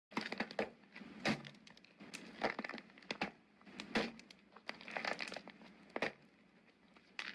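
Slime being squeezed and kneaded by hand, crackling and popping in a run of short bursts about a second apart.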